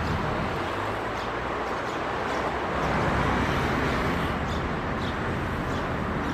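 Steady outdoor traffic and street noise, swelling a little midway, with a few faint ticks.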